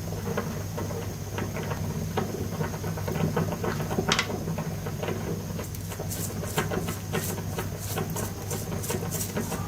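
Kitchen work: scattered light clicks and taps of utensils over a steady low hum, the taps coming faster and sharper in the second half.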